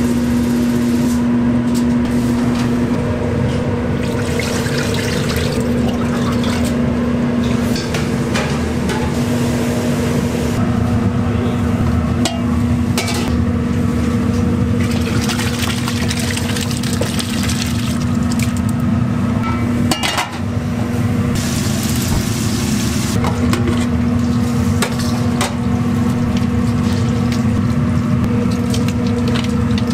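Food-stall kitchen work: utensils and pans clattering and liquid being stirred, over a steady machine hum that drops out briefly about two-thirds of the way in.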